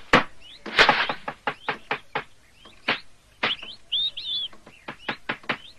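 Birds chirping while sharp knocks repeat irregularly, a few each second, with a louder run of chirps about four seconds in.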